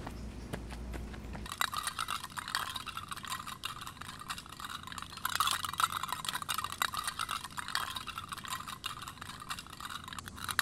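Tin cans tied behind a runner's shoes clattering and clinking as they are dragged along an asphalt path at a jog, starting about a second and a half in.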